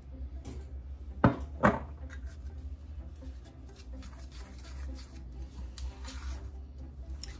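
Two sharp knocks about a second in, then a spoon scraping and stirring in a stainless steel mixing bowl, working powdered sugar into crunchy peanut butter.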